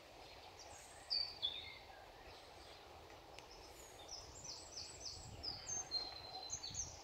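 A songbird singing short phrases of high notes, a quick falling pair about a second in, then a run of rapid repeated notes from about four seconds on, over a low steady rumble of wind.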